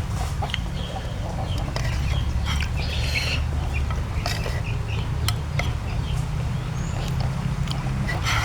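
Chewing and crunching on kerupuk crackers: many short, sharp crunches and a few rustling bursts over a steady low hum.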